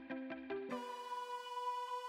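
Background music: quick repeating plucked notes that give way, about two-thirds of a second in, to a held synthesizer note.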